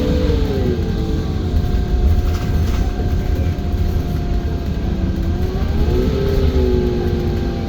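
On board an IIA Menarinibus Citymood 12 CNG city bus under way, its engine heavily soundproofed: a steady low rumble with a whining drivetrain tone. The whine falls in pitch in the first second and rises again about five to six seconds in.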